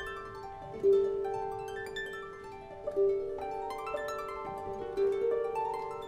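Background music of plucked strings: quick runs of notes climbing and falling over a low note that is plucked again about every two seconds.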